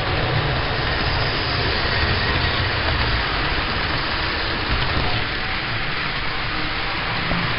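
HO scale model train running along the track close by, a steady noisy whir of its motor and wheels.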